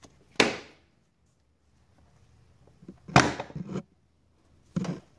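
Airbox housing clips on a 2003 Kia Sorento being unclipped by hand: three sharp snaps, one right at the start, one about three seconds in with a short rattle after it, and one near the end.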